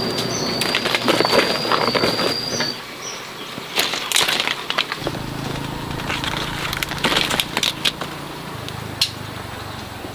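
Leaves and branches rustling as fruit is picked by hand from a tree, with scattered sharp clicks and snaps of twigs and leaves. A thin, high, slightly wavering tone sounds for the first couple of seconds, then stops.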